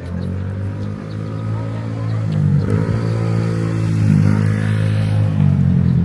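A motor vehicle's engine running close by, loud and steady, its pitch dipping and recovering a couple of times.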